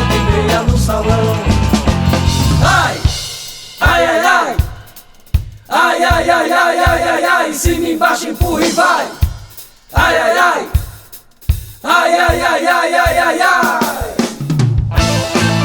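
Band music from a forró/brega group: an instrumental passage with drum kit hits under a bending, vibrato-laden melodic lead line, broken by a few short stops before the full groove returns near the end.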